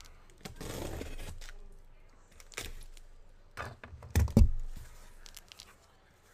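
A cardboard case of trading-card hobby boxes being opened and handled: scraping and rustling of cardboard, a few sharp clicks, and a heavier knock a little past four seconds in.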